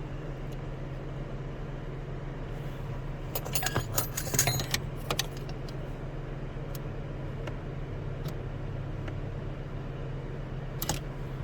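Metallic jingling and clicking for about two seconds, a few seconds in, with a couple more clicks near the end, over a steady low hum.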